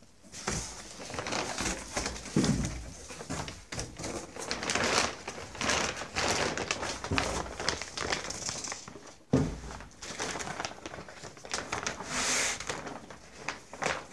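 A large clear plastic bag rustling and crinkling in irregular bursts as a boxed-up machine inside it is handled. A single sharp knock comes about nine seconds in.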